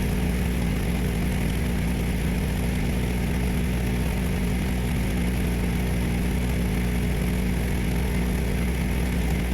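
Gasoline engine of an engine-driven welder running steadily.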